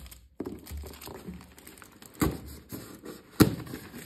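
Cardboard product box handled among plastic packaging: low rustling and crinkling, with two sharp knocks a little over a second apart, the second louder.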